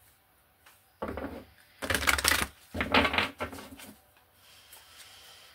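Tarot cards being handled off camera: a few short bursts of rustling and tapping about one, two and three seconds in, the loudest around two seconds.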